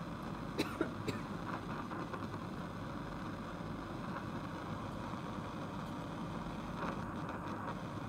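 Bunsen burner flame running with a steady rushing noise, with a few light clicks in the first second or so.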